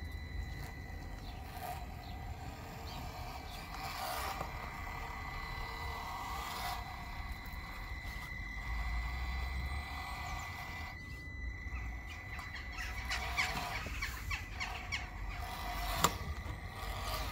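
Traxxas TRX-4M mini crawler's electric motor and geared drivetrain whining steadily as it crawls over rocks, with the clicks and knocks of tyres and chassis on stone. The whine cuts out briefly about eleven seconds in, then comes back less evenly, with a sharp knock near the end.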